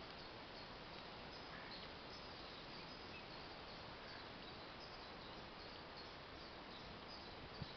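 Faint outdoor ambience: a steady hiss with faint, short, high chirps recurring through it, and a small tap near the end.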